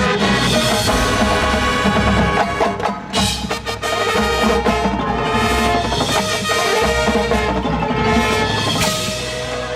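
High school marching band playing, with brass and percussion, the brass carrying the tune. The sound dips briefly about three seconds in, then the full band comes back.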